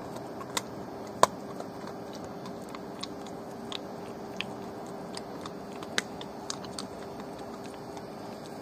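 A dog crunching and gnawing bones, making irregular sharp cracks, the loudest about a second in and another near six seconds.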